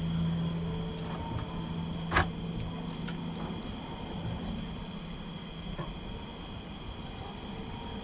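A steady low hum with one sharp knock a little over two seconds in, over faint chirps of insects repeating about every two seconds. The hum fades out about six seconds in.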